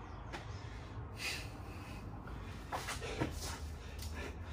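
A man breathing hard from exertion, with short, forceful exhales and gasps every second or so.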